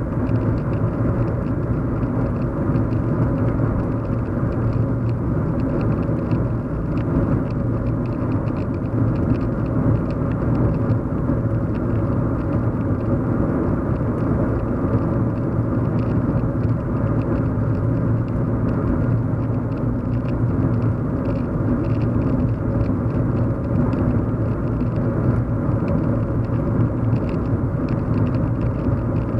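Steady hum inside a moving car's cabin: engine and road noise, strongest in a low drone, holding even throughout.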